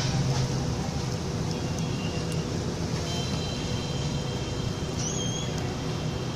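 Steady rumble of street traffic, with a few faint high tones in the second half.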